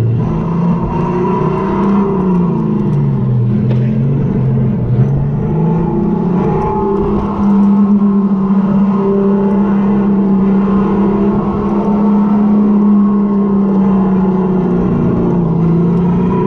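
Electric go-kart motor whining as the kart drives, over a low rush of noise: the pitch sinks for a few seconds as it slows, then climbs and holds steady and louder from about halfway through as the kart runs at speed.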